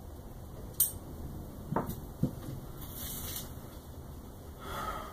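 Small metal hand tools and hardware being handled and set down: a sharp click about a second in, two duller knocks around two seconds in, then soft rustling, over a steady low background noise.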